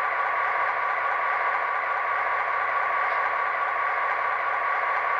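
Soundtraxx Tsunami 2 sound decoder in an HO-scale GP15-1 model locomotive playing a diesel engine idling steadily through the model's small speaker, with little bass.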